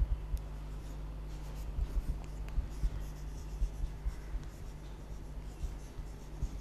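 Chalk writing on a blackboard: short, irregular scratches and taps of the chalk stick against the board, over a steady low hum.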